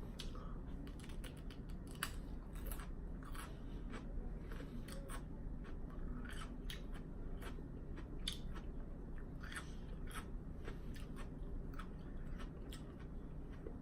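Close-up chewing of raw cucumber: a string of irregular crisp, wet crunches as the pieces are bitten and chewed.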